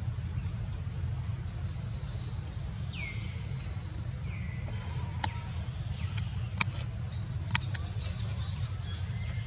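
Outdoor ambience: a steady low rumble, with two short chirps falling in pitch about three and four seconds in, and a handful of sharp clicks in the middle.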